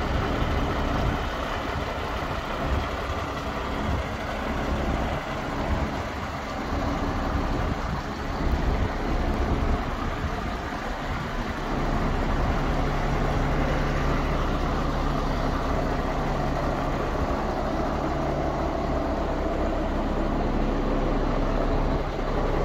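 MAN TGS 26.440 hooklift truck's diesel engine idling steadily, its low hum growing a little louder and steadier about halfway through.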